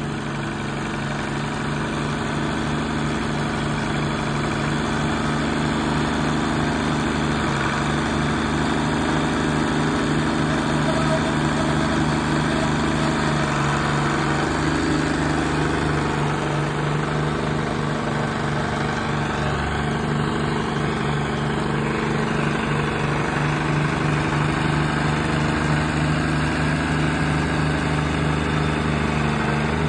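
Allis-Chalmers farm tractor's engine running at a steady, even speed as the tractor drives slowly, growing a little louder over the first several seconds.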